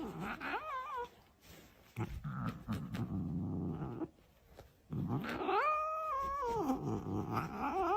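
A cat yowling in long, wavering calls, with a low growl in between.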